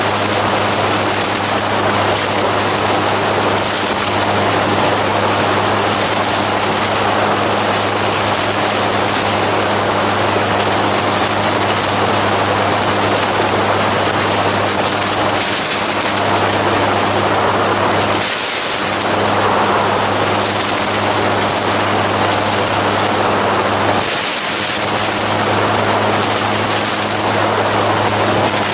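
Gyroplane engine and propeller running steadily in cruise flight: a low, even hum under a broad rush of air noise, dipping briefly twice in the second half.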